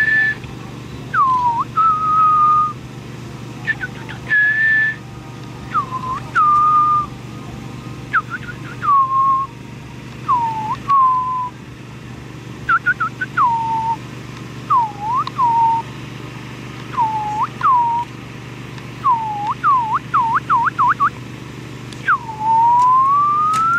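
Whistling: a dozen or so short notes, each swooping sharply down and then held briefly around a middle pitch, with a quick run of short swoops near the end, then one long whistle sliding steadily upward.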